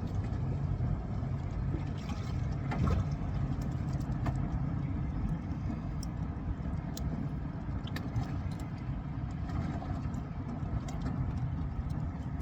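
A motor idling with a steady low rumble, plus a few light clicks.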